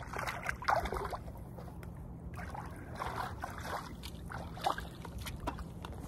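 Shallow water splashing and sloshing in irregular bursts as a person wades barefoot beside an inflatable paddleboard at the water's edge.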